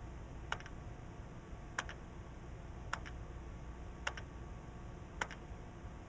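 Faint, evenly spaced electronic double clicks, about one every second, over a low steady hum.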